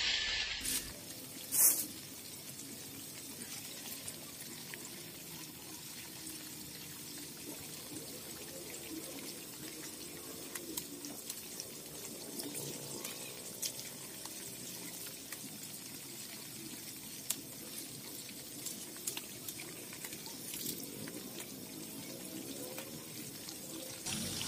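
Peeled cassava pieces frying in hot oil in a small pot: a steady bubbling sizzle, with scattered light clicks and one sharp click about two seconds in.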